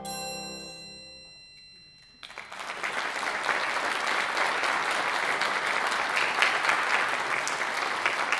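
An orchestra's final chord fades away under a high ringing note that stops short about two seconds in. The audience then starts applauding and keeps clapping steadily.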